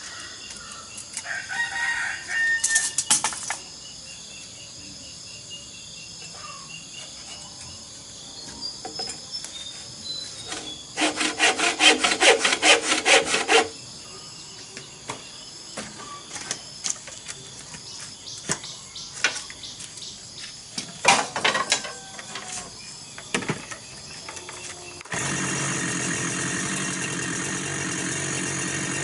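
Crickets chirring steadily, broken by short runs of rapid scraping strokes on bamboo, the longest lasting about three seconds midway. About four seconds before the end a two-stroke chainsaw starts and runs at a steady level.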